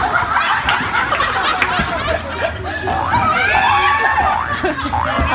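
People laughing and snickering, with sharp knocks of bowling balls and pins clattering in the background.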